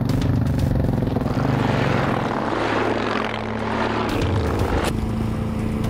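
Motorcycle engines running under throttle, cutting suddenly to a different engine sound about five seconds in.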